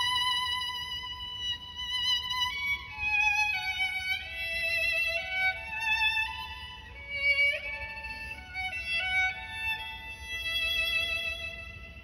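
Music: a solo bowed string instrument playing a slow melody of held notes with vibrato, sliding up into some notes.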